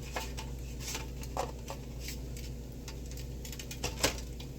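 Someone biting and chewing a crispy, freshly pan-fried sweet pancake, with scattered small crackles and clicks and a sharper click about four seconds in, over a steady low hum.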